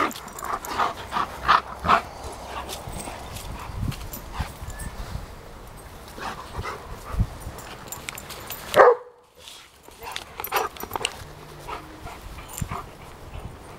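Bernese mountain dogs barking and yipping in play: a quick run of short barks in the first two seconds, one loud bark about nine seconds in, then scattered shorter barks.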